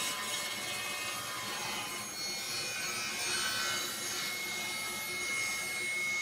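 Table saw ripping a glued-up solid cherry leg blank, the blade cutting steadily through the wood. A thin steady whine joins the sound about two seconds in.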